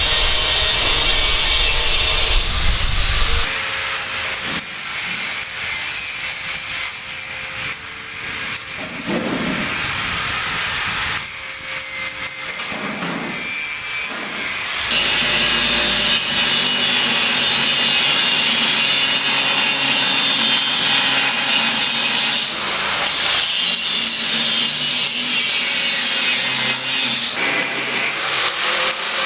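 Building-site work noise, mainly sawing and tool sounds, in several short stretches that change abruptly every few seconds.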